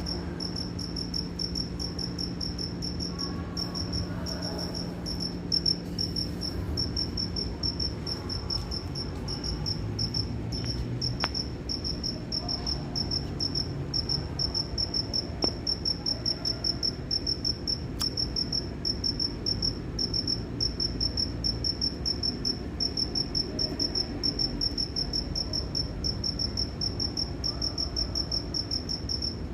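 Cricket chirping steadily: a fast, even string of high-pitched chirps that keeps going without a break. A low hum under it fades out about six seconds in.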